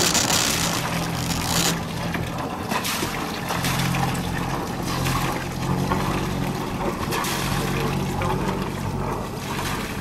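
Sailing yacht's inboard engine running at low revs with a steady low hum, its propeller wash churning and splashing the water at the stern while the boat manoeuvres into a berth.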